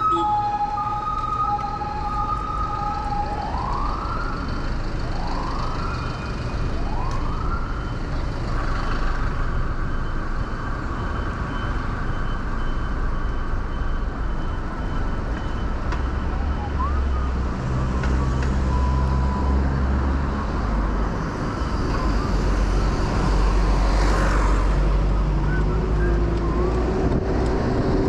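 Emergency vehicle siren in city traffic: a two-tone hi-lo for the first few seconds, then three rising wails, then a held tone that fades out about halfway through. Steady traffic rumble of engines underneath, with a brief hissing swell near the end.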